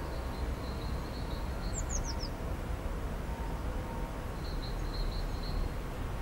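A small songbird chirps over a steady low outdoor rumble of wind and distant traffic. It gives a few short high notes, then a quick run of four falling chirps about two seconds in, and more short notes later.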